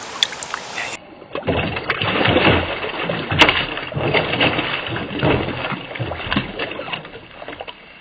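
Bluegill thrashing in a plastic bucket of water, splashing irregularly for several seconds. A short steady hiss comes before the splashing starts.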